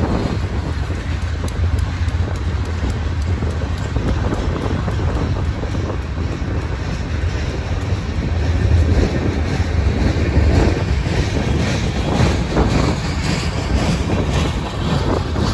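Freight train of tank cars rolling past close by: a steady low rumble of steel wheels on rail with light clicking from the trucks over the rail joints.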